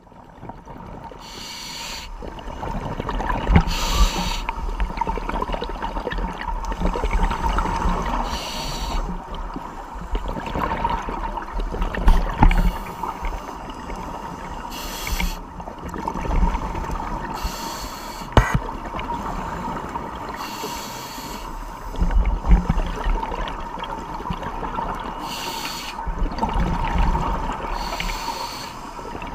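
Scuba breathing heard underwater through a regulator: a hiss of breath followed by a rush of exhaled bubbles, recurring every few seconds over a low rumble of water. A faint steady whine runs underneath.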